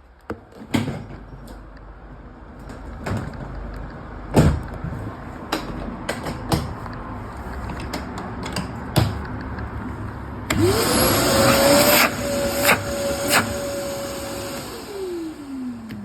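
Bosch construction vacuum cleaner with no hose fitted: several knocks and clicks of handling, then about ten seconds in the motor is switched on, spins up to a steady whine, runs for about four seconds, and is switched off, winding down in a falling whine.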